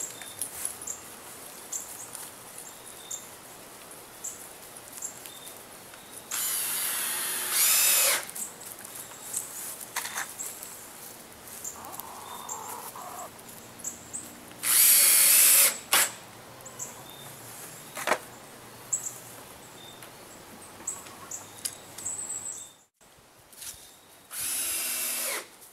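Cordless drill driving screws through a plywood panel into a wooden frame: three short runs of motor whine, each a second or so long, with light clicks and knocks in between.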